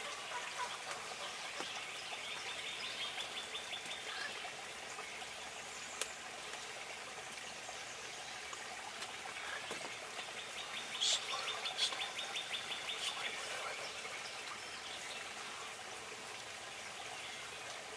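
Songbirds calling: a dry, rapid trill of evenly repeated notes heard twice, with a few short high chirps near the second trill. There is a single sharp tick about six seconds in.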